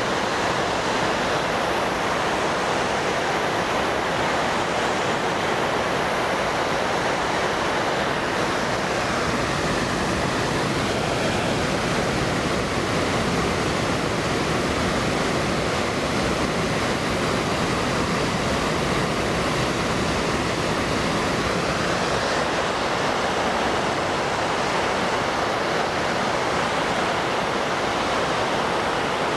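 Steady rushing of flowing water, an even noise that holds at one level throughout.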